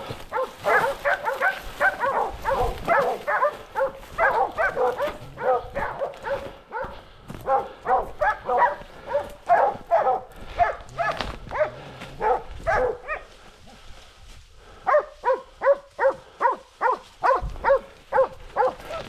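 Boar-hunting dogs baying: rapid, continuous barking, several barks a second, with a break of about a second roughly three-quarters through.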